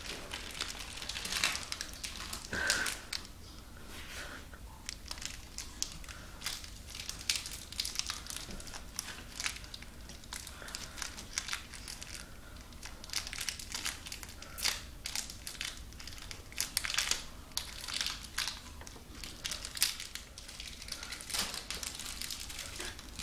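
Wrapper of a wasabi-flavoured Kit Kat crinkling as it is handled and unwrapped by hand, in many short, irregular crackles.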